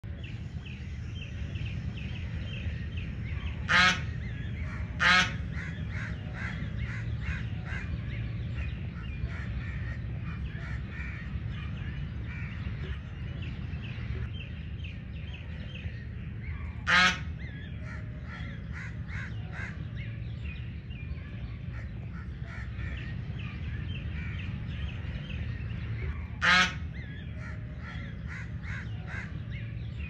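Domestic geese honking: four loud honks, two close together near the start, one about midway and one near the end, over a steady chatter of fainter bird calls and a constant low rumble.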